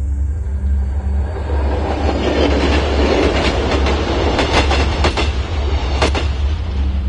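A train rushing past, its noise building up and then easing off, with a quick run of sharp wheel clacks over rail joints toward the end.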